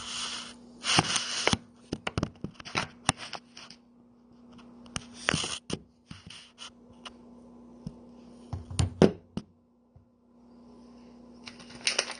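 Kitchen handling noises: rustling of a plastic meat package, clicks and a knock, over a faint steady hum. Near the end a dense crackling starts: a raw chicken breast frying in hot olive oil and ghee in a skillet.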